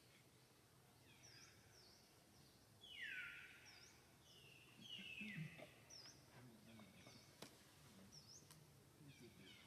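Faint birdsong: short high chirps repeating every second or so, with two louder downward-sliding calls about three and five seconds in.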